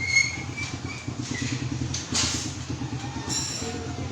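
A small engine running steadily with a low pulsing rumble, with a few short high squeaks over it near the start and again about three seconds in.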